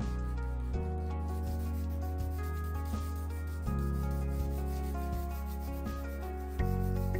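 Sanding of a dried gesso coat on a canvas, a steady rubbing of abrasive on the primed surface to smooth out bumps. It is heard under background music whose sustained chords change about a second in, halfway through and near the end.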